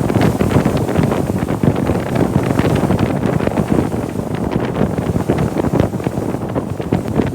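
Strong wind buffeting the microphone in rapid, uneven gusts.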